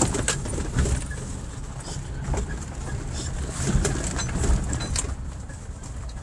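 Off-road vehicle's engine running at low speed, with scattered knocks and rattles as the vehicle crawls over rough ground.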